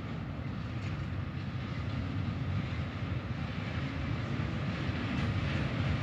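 An approaching freight train, a low rumble growing steadily louder as it nears.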